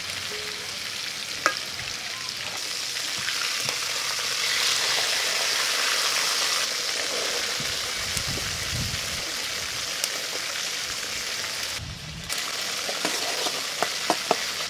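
Whole fish deep-frying in hot oil in an aluminium wok: a steady sizzle, with a sharp knock about a second and a half in. Near the end a wok of chopped aromatics sizzles while a spatula clicks against the pan several times.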